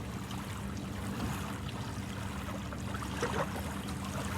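Steady wash of ocean waves on a beach, with a low steady hum underneath.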